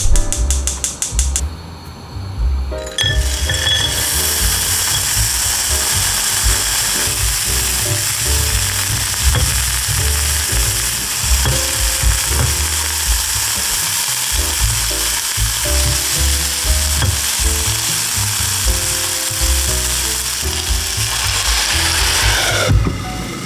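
Frozen mixed vegetables and wood ear mushrooms sizzling steadily in a hot frying pan while being stirred, the sizzle starting about three seconds in.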